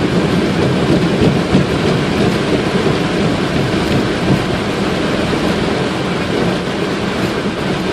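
Boeing 777's engines in reverse thrust during the landing rollout on a wet runway, heard inside the cockpit as a steady, heavy rumble that eases slightly as the aircraft slows.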